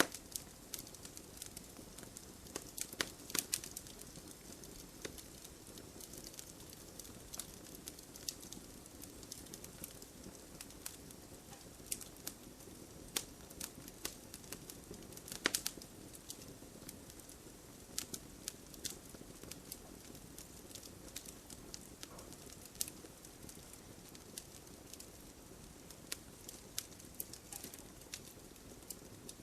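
Wood fire burning in a fireplace, crackling with irregular sharp pops and snaps over a steady low rush of flame; the loudest pops come about three seconds in and about halfway through.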